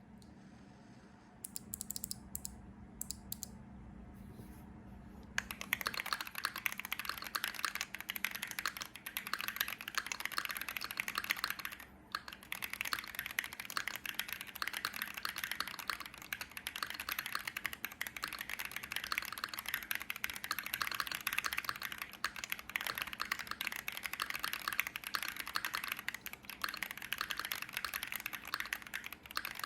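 Typing on a Keychron Q5 mechanical keyboard with lubed Cannonkeys Coffee Chip tactile switches, a steel plate, PBT keycaps and a tape-modded PCB: a few scattered keystrokes, then steady fast typing from about five seconds in, with a brief pause near the middle.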